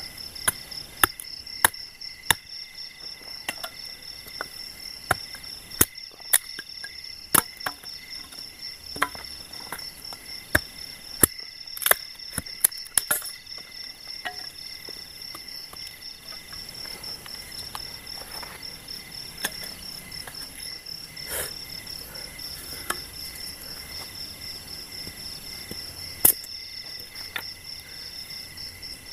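Night-time chorus of crickets and other insects, a steady pulsing trill high in pitch. Over it come irregular sharp wooden knocks and cracks, from wood being struck or broken by hand, most of them in the first half.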